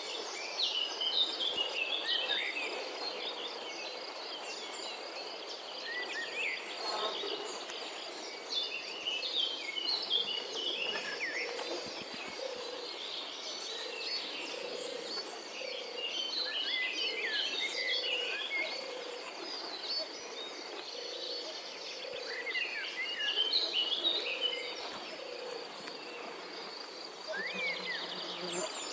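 Outdoor nature ambience: a steady high insect trill throughout, with bursts of bird chirps and calls that come and go in clusters.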